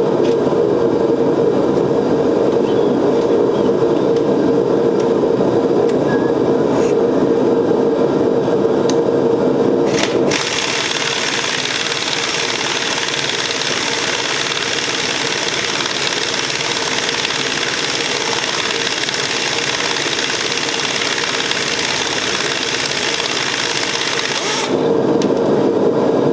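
Continuous loud mechanical whirring noise from shop machinery. It turns brighter and hissier about ten seconds in and returns to its lower, heavier character near the end.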